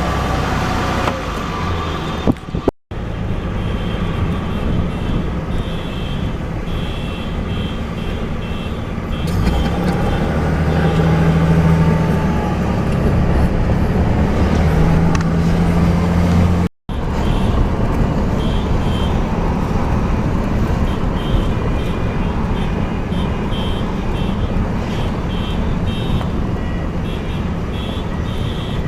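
A caravan of cars driving along a road with horns honking on and off over steady engine and road rumble. The sound drops out briefly twice, about three seconds in and again after about seventeen seconds.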